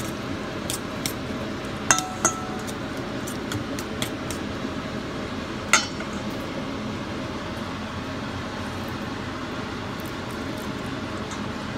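Fork clinking against a stainless steel mixing bowl while beating eggs: a few sharp ringing clinks, two close together about two seconds in and the loudest near six seconds, over steady background noise.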